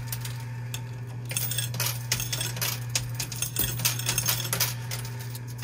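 Quarters dropping in a coin pusher machine, clinking irregularly against other coins and the metal playfield, over the machine's steady low hum. The clinks thin out for about a second near the start, then pick up again.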